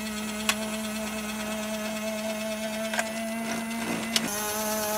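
Small electric motor and plastic gears of a battery-powered knockoff transforming Thomas the Tank toy whirring steadily as the robot section retracts into the engine body, with three sharp clicks about half a second in, at three seconds and just after four seconds. The sound shifts just after the last click.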